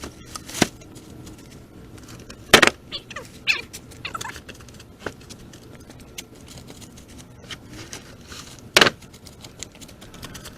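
Pieces of wood and scrap knocking and clattering as they are handled and moved: three sharp, loud knocks with lighter ticking between.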